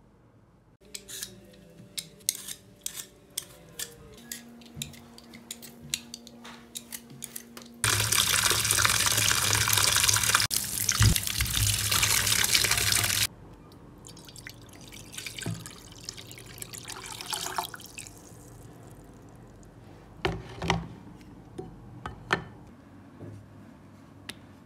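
Kitchen tap running hard into a bowl of peeled potatoes in a stainless steel sink for about five seconds, rinsing them. Before and after, scattered light clicks and knocks of kitchenware being handled.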